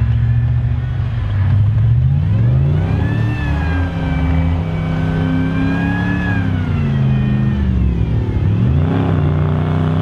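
Swapped-in GM LS6 V8 of a Nissan Patrol working hard through deep sand: the revs climb about a second and a half in, hold high for a few seconds, drop back, then rise again near the end.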